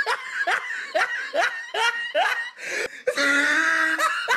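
A person laughing: a run of short, rising "ha" bursts, about two or three a second, then a longer drawn-out laugh about three seconds in.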